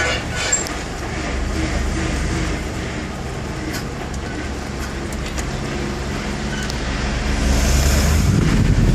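Steady low rumble of a car driving, heard from inside the cabin. A rush of noise swells louder about seven and a half seconds in.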